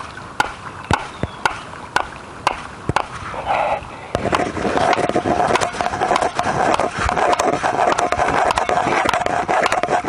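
A stake being driven into the ground. Sharp knocks come about twice a second, then about four seconds in they give way to a faster, continuous hammering with a steady tone under it.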